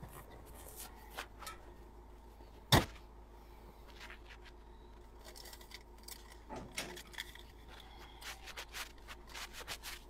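Faint rustling and small clicks from rummaging around a car's front footwell and handling a slip of paper, with one sharp knock about three seconds in.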